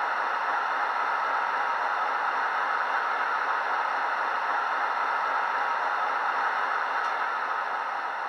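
Class 56 diesel sound file from a Coastal DCC sound decoder playing through a small 20x20 mm megabass speaker in the standing model: a steady rushing hiss that begins to fade near the end.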